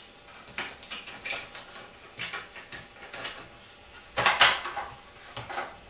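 Die-cast metal outer barrel and front sight section of an airsoft M16A4 being slid back onto the inner barrel: scattered clicks and scrapes of metal parts, with a louder clatter a little after four seconds in.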